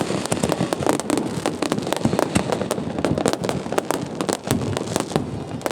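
Fireworks display going off, a dense run of overlapping bangs and crackles several times a second.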